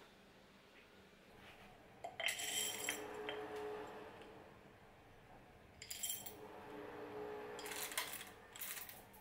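Glassware and dishes clinking as they are handled on a kitchen counter: a clattering burst about two seconds in, then a few short clinks near six and eight seconds in.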